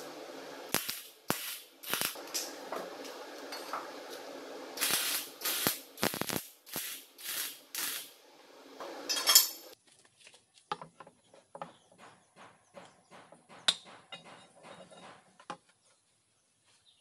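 MIG welder tack-welding a square steel tube frame: short bursts of crackling arc, about a dozen in the first ten seconds. Then a stretch of light clicks and taps, with one sharper click.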